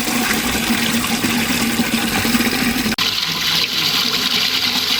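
Steady rush of spring water running at a holy well, with a brief break about three seconds in, after which it sounds brighter.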